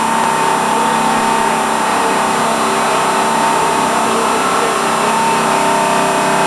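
Boat engine running at a steady speed, a constant drone with no change in pitch.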